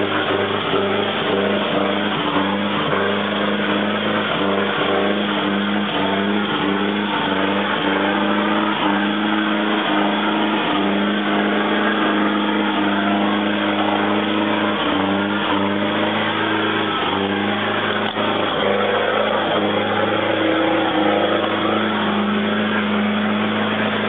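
4WD pickup truck's engine running steadily as the truck drives over a rutted mud track, its pitch holding fairly even with slight swells. Irregular knocks and clunks from the truck jolting through the ruts run throughout.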